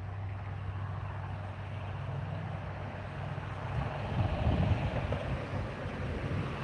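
Wind gusting and buffeting the microphone ahead of a thunderstorm, over a steady low hum; the gusts are strongest about four to five seconds in.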